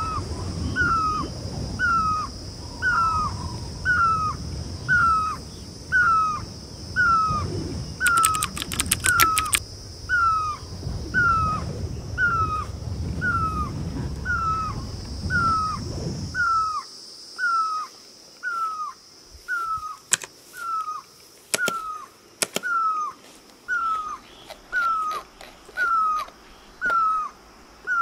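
A bird calling: one short, clear, down-slurred note repeated steadily about once a second. Under the calls runs a low background rush that cuts off about two-thirds of the way in.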